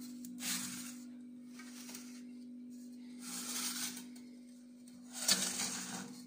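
A steady low hum with four soft, hissing swells, each under a second long, spread across it.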